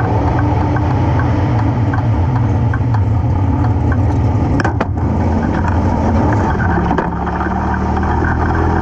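410 sprint car's V8 engine running at low revs with a steady rumble, the car sitting and then rolling slowly on dirt. One sharp click near the middle.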